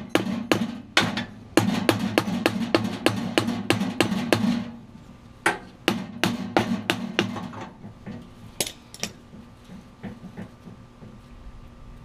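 Hammer blows on a rusted-on steel wheel and axle of a concrete mixer, struck about three times a second with a low ring to each blow, in two runs with a short pause near the middle, then two single blows. The wheel is rusted onto the axle and won't move.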